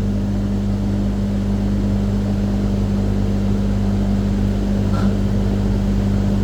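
AAON rooftop HVAC unit running in cooling: a steady low hum and drone from its compressor and fans, with a faint short click about five seconds in.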